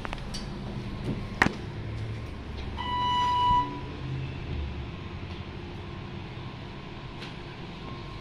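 A sharp click about a second and a half in, then a single electronic beep of just under a second from the hydraulic glass elevator, over a low steady hum.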